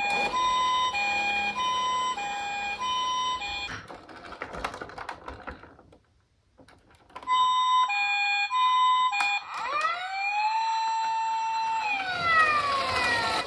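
Electronic sirens of toy emergency-vehicle minicars: a hi-lo two-tone siren alternating steadily, breaking off into a rattle and a moment of quiet, then starting again. About two-thirds of the way in, a wailing siren rises, holds and slides back down.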